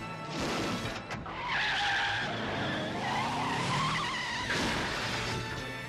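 Car tyres squealing through a long skid, with the squeal wavering in pitch, over a film score.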